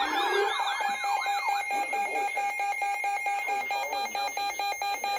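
Emergency Alert System warning tones for a severe thunderstorm warning: a steady electronic tone under wavering siren sweeps that die away in the first two seconds, then a fast, evenly pulsing alarm pattern over the steady tone.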